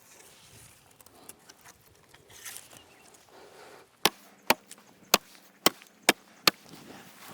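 Wood being chopped with a blade: quiet rustling, then about seven quick, sharp strokes, roughly two a second, starting a little past the middle.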